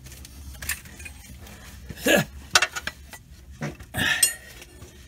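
A handful of irregular, sharp metal clinks and knocks from a long steel socket extension being worked up against a connecting rod and tapped with a hammer. This is how the piston and rod assembly of a Ford 3.0 Vulcan V6 is driven up out of its bore. One knock near the end rings briefly.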